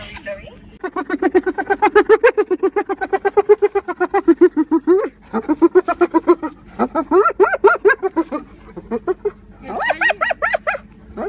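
Hyena giggling: long runs of rapid, pitched, laughter-like notes, about eight a second, in several bouts.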